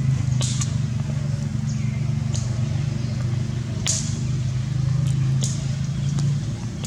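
A steady low hum with several short, sharp clicks scattered through it.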